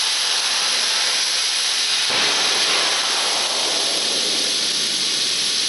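Steady, loud hiss of rushing air or gas, growing fuller about two seconds in.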